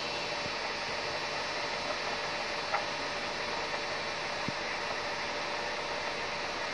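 Steady background hum and hiss, with a faint click about three seconds in and another near the middle.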